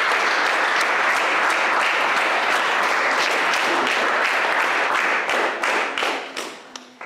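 Audience applauding, dense and even at first, then thinning to scattered single claps about five seconds in and dying away near the end.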